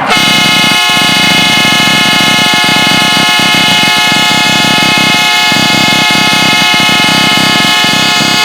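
Compressor-fed train horn, rated at 145 dB, blasting one long, very loud, steady chord that starts abruptly.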